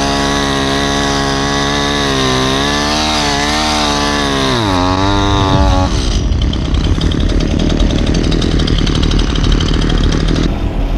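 Chainsaw running at high speed, its pitch wavering as it cuts through the downed tree, then dropping sharply to a low idle about five seconds in.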